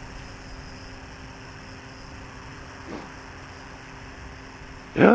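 Hexacopter drone's electric motors and propellers humming steadily over a hiss of background noise.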